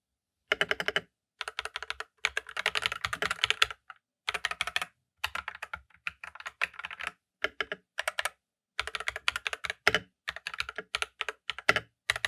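AKKO 5087B Plus mechanical keyboard being typed on in quick bursts of keystrokes with short pauses between them. It has factory-lubed Akko V3 Cream Yellow Pro linear switches and foam dampening, with no rattle or scratch heard.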